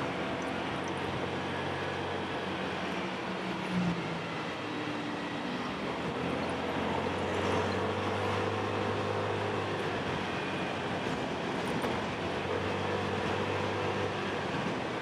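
Motorcycle engine running under way, heard with steady wind and road noise from riding through traffic.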